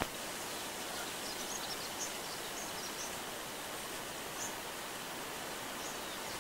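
Steady hiss of outdoor forest ambience with a few faint, short, high bird chirps scattered through it, and a brief click at the very start.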